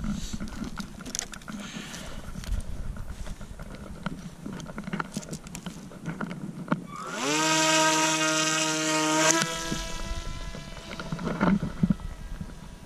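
Small motor of a Graupner Jolly RC motor glider briefly run up: a whine that rises in pitch, holds steady for about two seconds and cuts off abruptly. Wind and handling noise rustle on the microphone around it.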